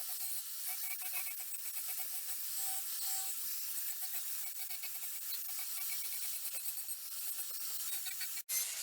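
Steady hissing, rubbing noise of abrasive work on an axe, broken by a sudden brief drop-out near the end.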